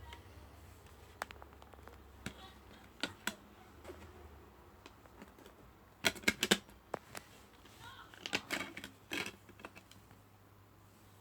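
Plastic DVD case being handled and opened: scattered sharp clicks and taps, with a quick run of louder clicks about six seconds in and another around eight and a half seconds.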